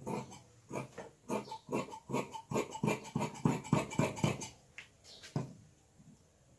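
Large metal dressmaker's shears cutting through fabric on a tabletop in a run of quick snips, about three a second, stopping about four and a half seconds in, with one more snip a second later.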